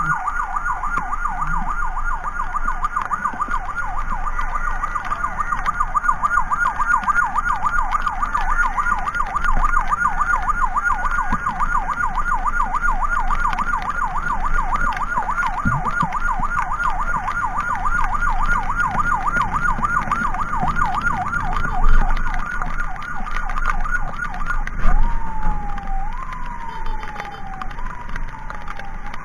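Emergency siren sounding a rapid yelp, switching near the end to a slower wail of rising sweeps about one a second, over a steady vehicle rumble. Two loud knocks stand out in the last few seconds.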